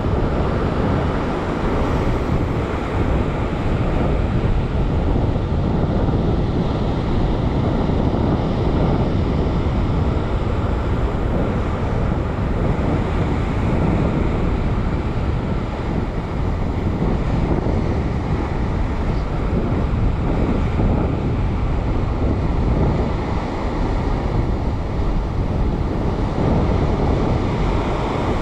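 Wind buffeting the microphone over ocean surf breaking and washing across a rock ledge: a steady rushing noise, heaviest in the low end.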